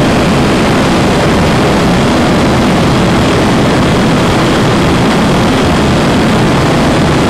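Steady, loud airflow and engine noise inside the flight deck of an Airbus A340 on final approach to land, as picked up by a camcorder's microphone.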